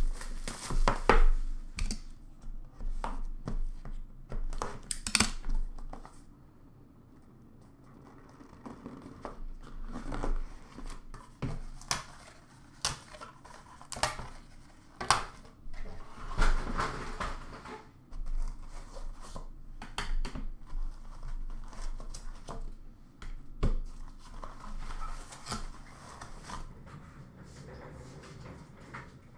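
A trading-card box being unwrapped and opened by hand: plastic wrap crinkling and tearing, and the cardboard box and lid rustling and knocking as they are handled. Scattered short rustles and clicks, with a quieter pause about six seconds in.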